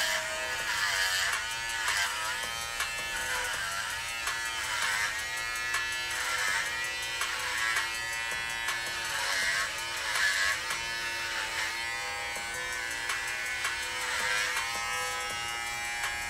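Electric hair clippers buzzing as they shave a head, the motor's pitch dipping and recovering every second or two as they are pushed through long hair.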